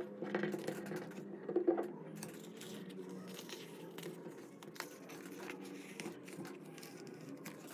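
Vinyl skin wrap crinkling and rustling with light finger taps and rubs as it is peeled back and pressed onto the back of an iPad; quiet, with a slightly louder rustle about two seconds in.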